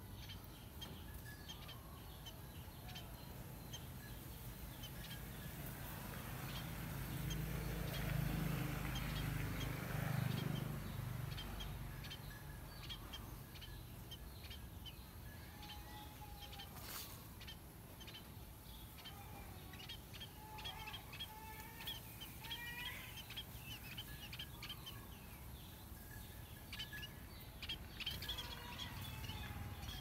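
Birds chirping and calling in short, scattered notes throughout, with a low rumbling swell of noise that rises and fades between about six and twelve seconds in.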